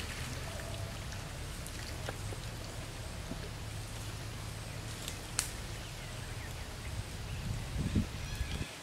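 Water splashing and lapping as macaques swim through a pond, over a steady low rumble, with scattered small clicks, one sharp click about five seconds in, and a few louder bumps near the end.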